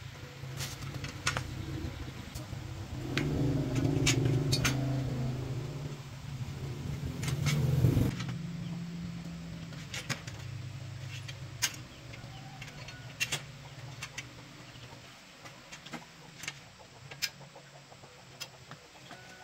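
A motor engine's low hum builds, runs loudest for a few seconds and fades away by about the middle, with a sharp knock just before it fades. Scattered light metallic clicks and taps of hands working on a bicycle wheel's hub and axle continue throughout.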